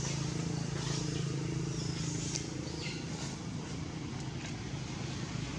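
Steady low engine hum, with a few faint short high squeaks over it.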